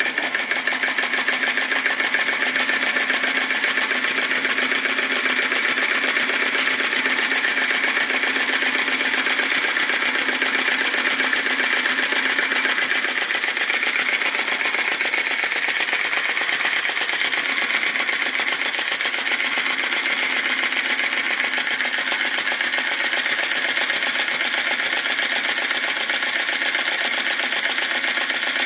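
Retrol VE-01 crossbeam flame-licker (vacuum) engine running steadily with a fast, even mechanical clatter.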